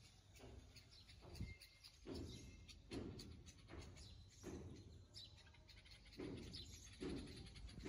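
Near silence outdoors, with faint, irregular bird chirps now and then.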